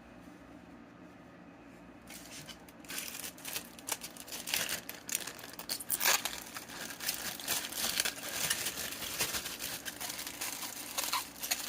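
Paper napkin and plastic bag being handled, rustling and crinkling irregularly, starting about two seconds in, as sprouted seeds are wrapped and bagged for germination.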